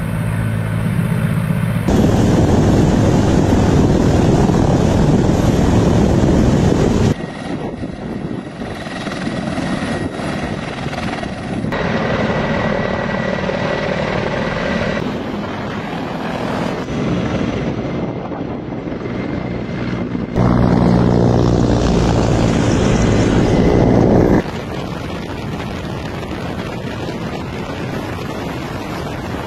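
Several Russian military helicopters, Mi-24 and Mi-28 attack helicopters among them, with rotor blades and turbine engines running as they taxi, lift off and fly past. The sound is steady but changes abruptly in level and character several times, cut from one shot to the next.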